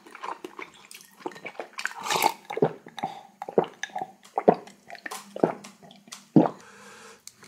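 Close-up wet eating sounds of someone having hot seaweed soup with rice: a string of sharp slurps and wet mouth smacks at irregular intervals, with lighter clicks in between.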